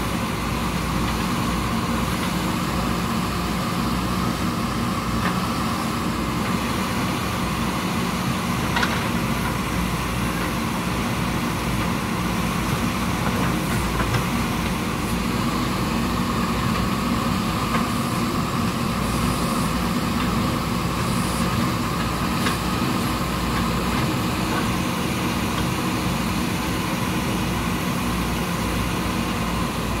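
JCB 3DX backhoe loader's diesel engine running steadily while its backhoe arm digs mud, with a few faint knocks.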